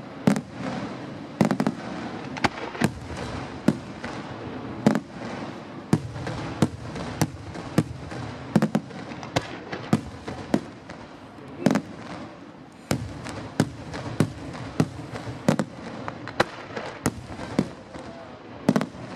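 Aerial fireworks shells bursting overhead during a display: sharp bangs come at irregular intervals, roughly one or two a second, over a continuous noisy background of the display.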